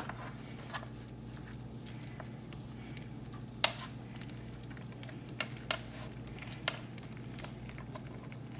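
Quiet food-handling sounds as a flour tortilla is filled with a creamy chicken mixture and rolled up: soft squishing and a few scattered light clicks and taps, the sharpest a little past three and a half seconds in. A steady low hum runs underneath.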